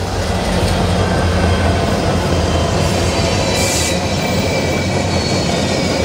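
BNSF diesel freight train passing close: the locomotives' engines run with a steady low drone under the loud noise of wheels on the rails. A brief high-pitched sound cuts through a little before the four-second mark.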